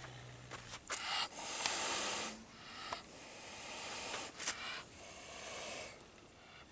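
Caged wild cat hissing three times in long, breathy hisses, the first the loudest. The hissing is the warning of an unhappy, defensive cat.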